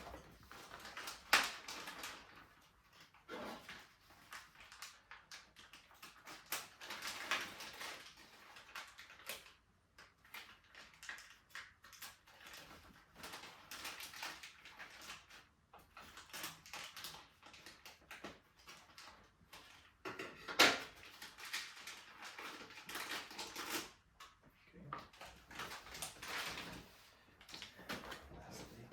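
Irregular clicks, knocks and rustling of bicycle parts and tools being handled during disassembly, with two sharper knocks, one about a second in and one around twenty seconds in.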